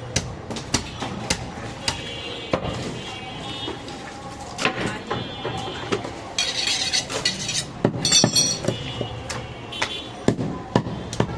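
Butcher's cleaver chopping goat meat on a block: a rapid, irregular run of sharp chops, about two to three a second, some with a metallic clink.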